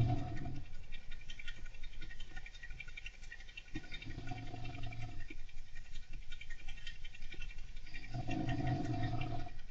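A person snoring: a low pitched drone about a second and a half long, repeating about every four seconds, over a constant light scratching and clicking from a golden hamster moving about.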